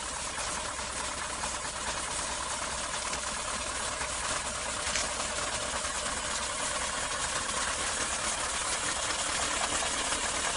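Heavy trucks' engines running steadily with a low hum, under a constant loud hiss.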